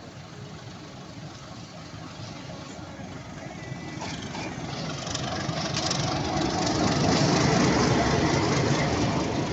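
Diesel locomotive running as it pulls a train in and passes close by. The engine sound grows steadily louder, peaks about seven seconds in as the locomotive goes past, then eases slightly.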